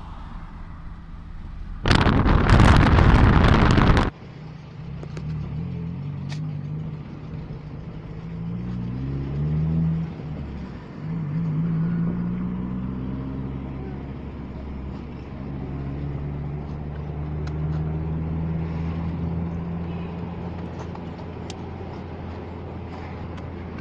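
A road vehicle's engine running with a steady low hum, rising in pitch a few times as it speeds up and changes gear. About two seconds in there is a loud two-second rush of wind on the microphone.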